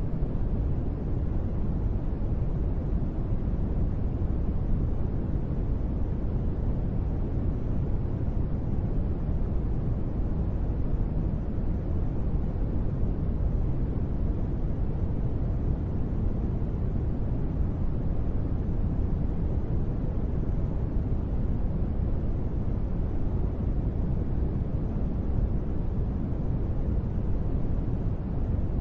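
Steady rain ambience blended into an even, deep hiss weighted toward the low end, with no separate drops, rhythm or thunder.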